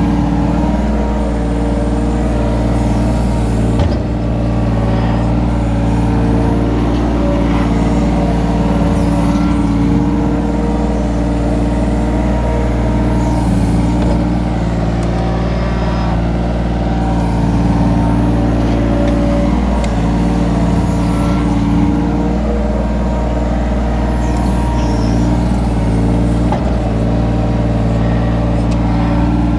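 Kobelco mini excavator's diesel engine running steadily under load from the operator's seat, while the hydraulics work the boom and bucket digging and dumping soil. A couple of brief knocks come through, about four seconds in and near the end.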